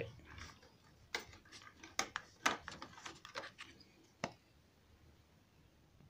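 Faint handling noise: a few light clicks and taps, irregularly spaced, as the recording camera is moved by hand. The taps stop after about four seconds.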